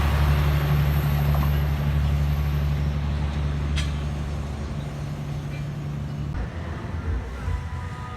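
Diesel locomotive engine running with a steady low drone that slowly fades, then stops abruptly about six seconds in. A single sharp click is heard near the middle.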